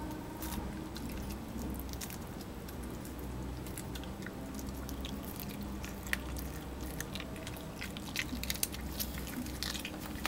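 A small dog chewing and biting raw fish held in a hand: irregular small wet clicks and crunches, more frequent in the second half, over a faint steady low hum.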